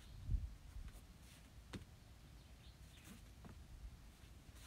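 A bare foot lands on the padded mats with one soft, low thud about a third of a second in, as a karate student finishes a kick. A few faint clicks and rustles follow, typical of her gi and feet moving through the rest of the combination.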